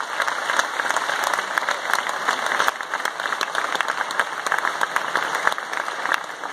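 Audience applauding, a dense steady patter of many people clapping.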